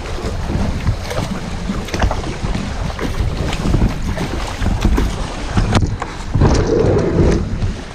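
Kayak being paddled against the creek current: irregular paddle splashes and knocks, with wind rumbling on the microphone.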